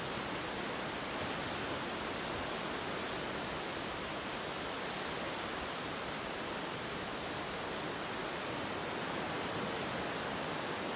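Steady, even rushing hiss with no swells, pauses or distinct strokes.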